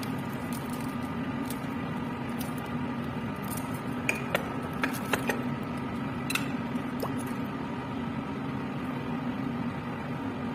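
Steady hum of a laminar air flow cabinet's blower, with light clinks of glass petri dishes and tools being handled: a cluster about four to five seconds in, and one or two more a little later.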